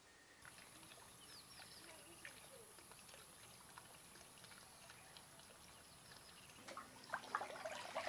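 Faint steady trickle of water from a swimming pool's inlet spout, with a few faint bird chirps about a second and a half in. Near the end, water splashing as people move in a small pool.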